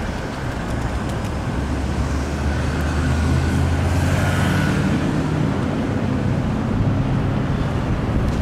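Road traffic going by, with one motor vehicle's low engine hum building, passing close about midway, and fading again.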